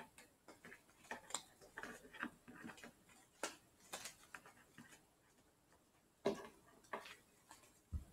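Playing cards being handled and set down on a wooden table: faint, irregular clicks and soft snaps, with a few sharper taps, the loudest about six seconds in.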